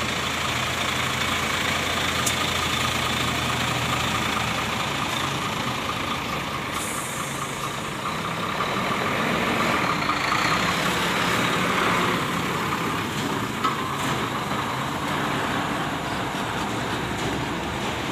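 Heavy diesel trucks running close by, a steady engine sound that swells about halfway through, with a brief hiss about seven seconds in.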